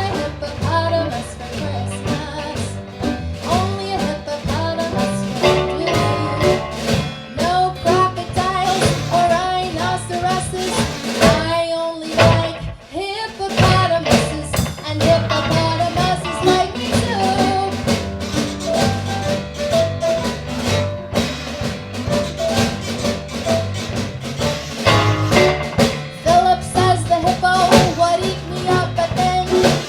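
Live band playing an upbeat, bluesy song: a melody line over guitar, bass and a drum kit beat, with a short break about twelve seconds in.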